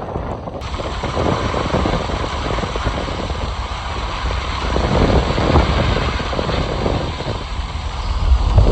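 Gusty wind buffeting the microphone: a loud, uneven rumbling rush with crackly flutters, growing stronger in the second half.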